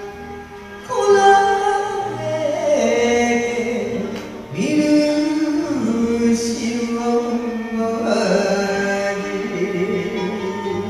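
A woman singing a Japanese song through a microphone over a karaoke backing track, holding long notes with vibrato.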